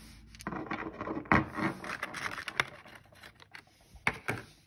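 Small airsoft gearbox gears being handled and set down on a wooden tabletop: a quick run of clicks, taps and scrapes, then two sharp clicks near the end.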